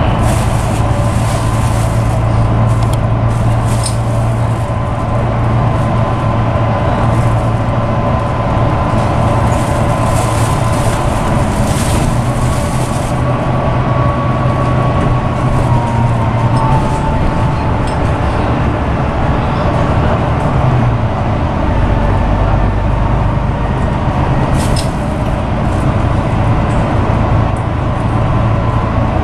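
Volvo B9TL double-decker bus with its Volvo D9B diesel and ZF EcoLife automatic gearbox running at speed, heard from on board: a steady engine and drivetrain hum over tyre and road noise. Its pitch dips a little past halfway.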